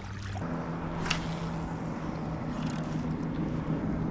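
Steady engine drone with a low, even pitch, slowly growing louder, with a faint click about a second in.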